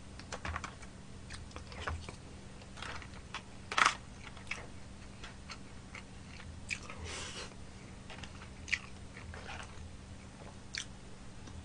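A person chewing and biting food, with scattered short clicks and crackles from plastic utensils on plastic takeout trays and foil. A few louder crunches and scrapes stand out, one about four seconds in and another about seven seconds in.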